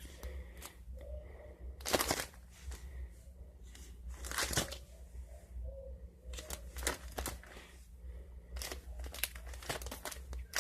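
Pokémon trading cards being handled and sorted, a string of short crinkling, rustling swishes, the loudest about two seconds and four and a half seconds in. A faint low hum runs underneath.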